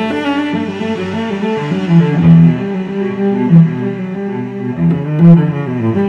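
Background music: a low melody of held and changing notes, with a few stronger accented low notes along the way.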